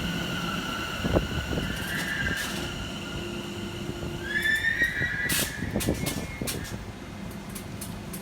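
Elizabeth line Class 345 train in the underground station, its traction motors giving a high whine that shifts pitch about two seconds in and rises about four seconds in. A few sharp knocks and clicks sound along with it.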